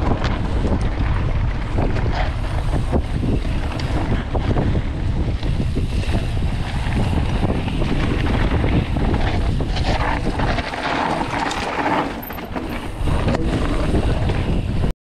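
Wind rushing over the microphone of a mountain bike ridden fast down a dirt forest trail, with tyre rumble and frequent rattles and clicks from the bike over bumps. The sound stops suddenly near the end.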